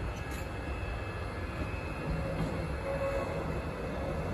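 VR Sr3 (Siemens Vectron) electric locomotive rolling slowly past while shunting: a low, steady rumble, joined about halfway through by a faint steady hum.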